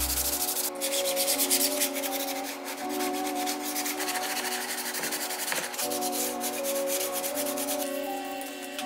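Sandpaper rubbing by hand over a primer-coated 3D-printed plastic RC car body in quick repeated scratchy strokes, over background music with sustained notes. Near the end the scratching gives way to the steady hiss of an aerosol spray can.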